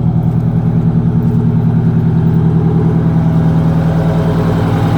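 Detroit Diesel 8V92 two-stroke V8 diesel idling steadily, with a low, even pulsing throb.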